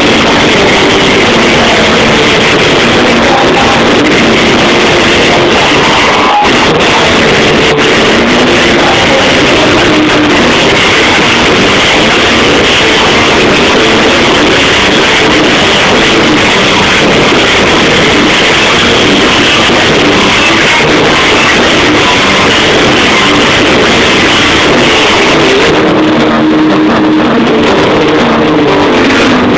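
Loud rock music from a band playing live, with guitar.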